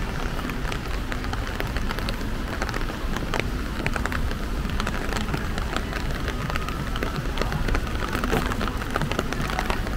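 Steady rain falling, with many single drops ticking close by throughout, over a low steady rumble.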